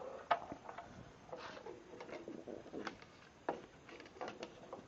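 Clicks and knocks from a Chicago Electric 12-inch sliding compound miter saw being handled and adjusted by hand, its motor not running, with a short wavering squeak near the middle.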